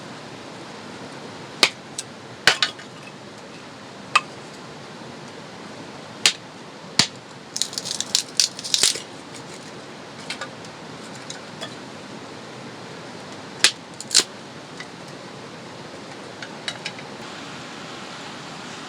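Scattered sharp clinks and knocks of camp cookware and utensils being handled, with a quick run of clinks about eight seconds in, over a steady background hiss.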